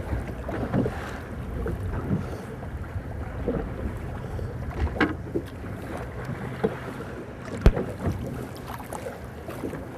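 Fishing boat on open water, a steady low rumble with wind on the microphone and scattered knocks and clatters from on board, and one sharp click about three quarters of the way through.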